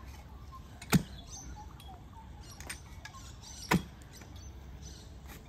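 Hand digging of a fence post hole: a steel digging tool is driven down into the soil twice, about three seconds apart, each stroke a short, sharp thud.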